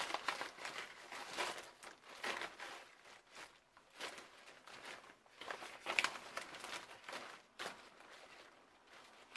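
Paper sheets and a clear plastic sleeve rustling and crinkling as they are leafed through by hand, in irregular bursts.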